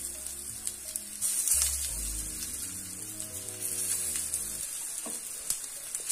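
Black-chickpea cutlets sizzling as they are laid one by one into hot mustard oil in a heavy pan for shallow-frying. The sizzle swells each time a fresh cutlet goes in, about a second and a half in and again around four seconds in.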